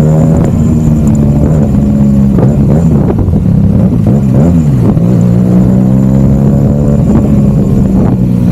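Twin-cylinder engine of a QJ Motor SRK 400 motorcycle running loud through a Yoshimura silencer and custom bend pipe, holding a steady exhaust note with a few brief dips and rises in pitch between about two and five seconds in.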